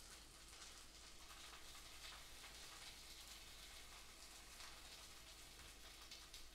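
Near silence, with faint soft crackling rustles of a cabbage leaf being rolled up by hand.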